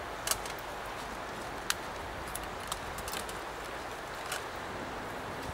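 Scattered light clicks and taps as a saxophone and other gear are handled and unpacked from a case and bag, over a steady low rushing noise.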